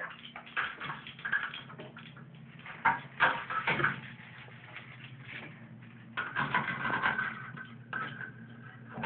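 Scattered light knocks and taps of a small toy against chrome bathtub faucet handles, with small sloshes of shallow bathwater around a toddler's feet, over a steady low hum.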